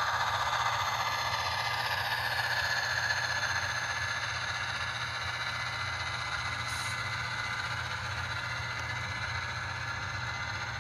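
Sound-decoder diesel engine sound of an HO-scale F40PH model running steadily at high revs in HEP mode (notch 8), played through the model's small onboard speaker, with light rattling of the model's wheels on the track. It fades slowly as the train moves along.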